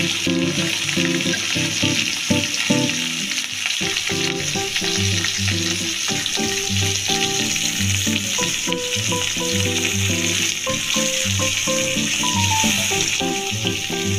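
Whole masala-coated fish shallow-frying in mustard oil in a kadai, with a steady sizzle all through. Background music with a melody and a steady beat plays along with it.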